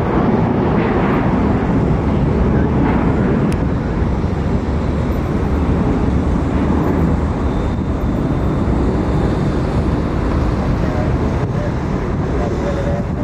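Jet airliner engines at takeoff power: a loud, steady jet rumble, heaviest in the low end, easing slightly near the end.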